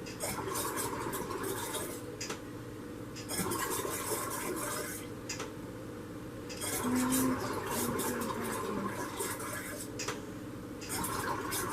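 Intermittent clinking and rustling of kitchen things being handled, in four stretches of a second or two each with short pauses between.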